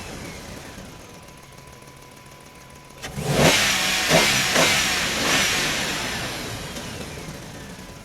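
A vehicle engine revving: a sudden loud surge about three seconds in, with several pulses, then slowly fading.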